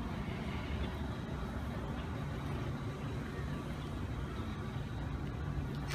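A vehicle engine idling: a steady low hum.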